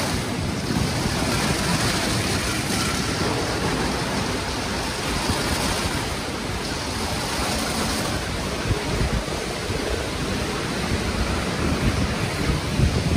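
Rotating brushes of an Istobal M'NEX 22 rollover car wash spinning and scrubbing over a car, giving a steady rushing noise that grows a little louder and rougher near the end.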